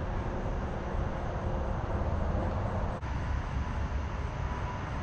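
Steady low rumble of road traffic, with a faint steady tone in the second half.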